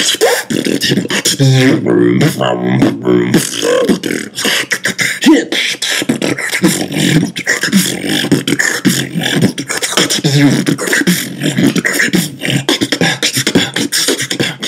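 A human beatboxer performing a continuous routine: a dense run of mouth-made kick, hi-hat and snare sounds, with stretches of pitched, hummed vocal tones woven in.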